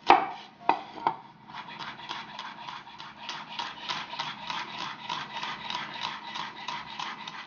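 Chef's knife chopping garlic cloves on a wooden cutting board: a few separate cuts, then from about a second and a half in a quick, even run of small knocks, several a second.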